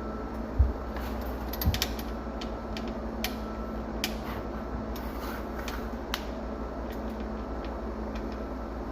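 Scattered light clicks and knocks over a steady low hum, with two low thumps about half a second and a second and a half in.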